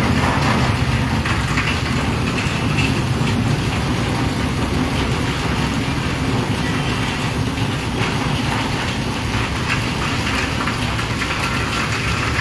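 Steady rain falling, with trucks and cars passing on a wet road and a constant low rumble of traffic under it.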